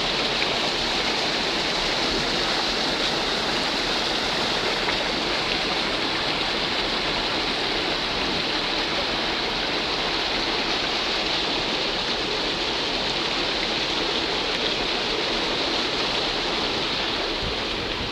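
Water pouring steadily through a concrete canal sluice gate: a constant, even rushing.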